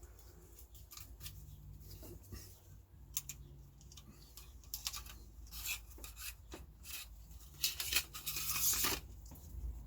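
Hands working small plastic and metal parts at a workbench: a run of clicks, taps and rubbing, with a longer, louder scraping stretch near the end.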